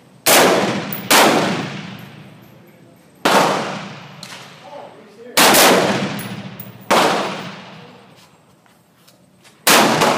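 AR-15 rifle shots, six in about ten seconds at uneven spacing: two close together at the start, then single shots a second and a half to three seconds apart. Each is a loud crack that trails off over a second or more.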